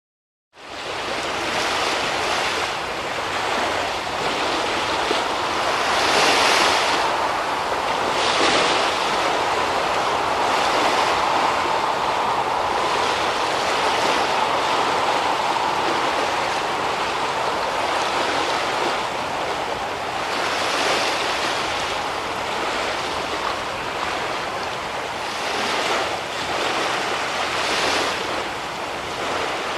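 Sea waves washing and splashing in a continuous wash, with a louder surge now and then.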